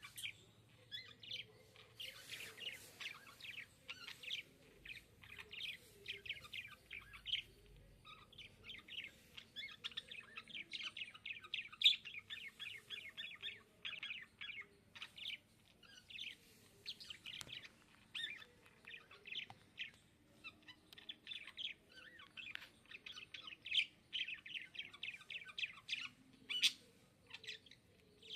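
Budgerigars chirping and warbling in a fast, continuous chatter, with a few louder sharp calls now and then.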